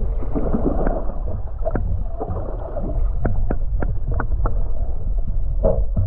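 Water sloshing against a small boat's hull over a steady low rumble, with many irregular sharp knocks, several a second.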